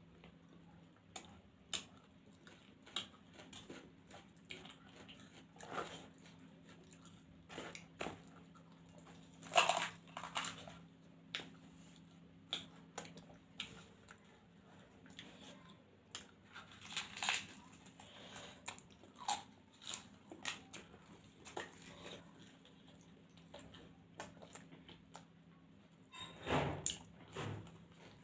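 Close-up mukbang eating sounds from two people eating spicy noodles, puri and potato curry by hand: irregular wet chewing, lip smacks and small clicks. The loudest bursts come about ten seconds in and again near the end.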